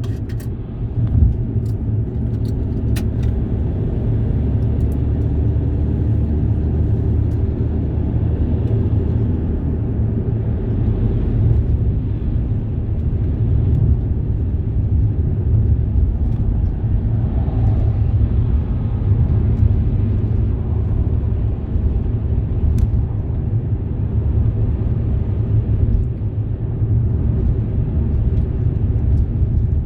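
Steady low rumble of a moving road vehicle, engine and tyre noise running continuously with little change.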